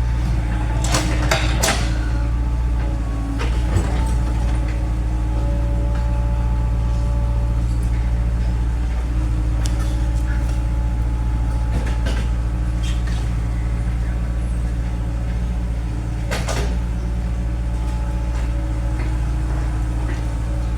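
Excavator diesel engine running steadily, with a few scattered sharp clicks and knocks over it, the strongest about a second in and again near the end.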